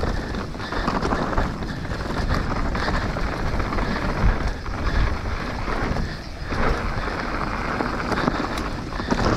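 Wind buffeting the microphone of a camera on a mountain bike riding an enduro stage at speed, with the bike rattling and knocking over rough ground.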